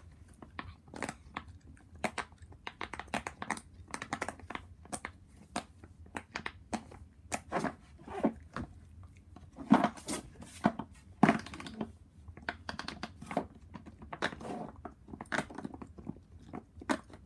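Silicone pop-it fidget toys being pressed fast by two pairs of hands: a dense, irregular run of small pops. A few louder thumps come about ten and eleven seconds in.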